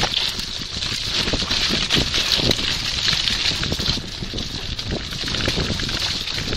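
Bicycle rattling and jolting over a rough dirt trail, a dense run of knocks and clicks, with wind rushing over the phone's microphone.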